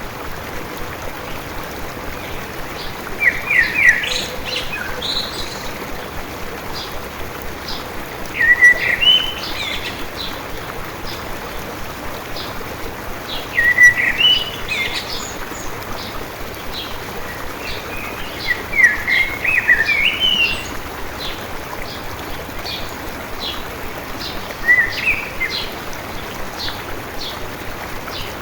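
Songbird singing short, quick phrases about every five seconds over the steady rush of a water stream.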